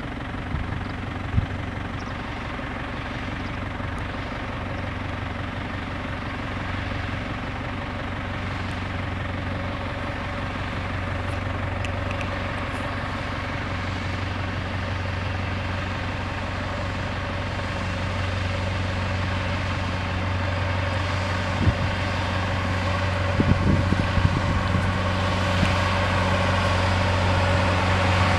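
Volvo BM 810 tractor's diesel engine running steadily under load as it pulls a seed drill, the hum slowly growing louder as it approaches, with a few brief knocks near the end.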